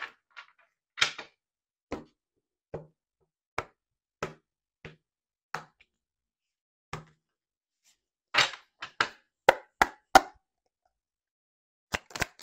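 A dropped deck of tarot cards being gathered up and handled on a table: separate light taps and clicks about once a second, a quicker cluster of louder taps about eight to ten seconds in, then a fast run of card clicks just before the end as shuffling begins.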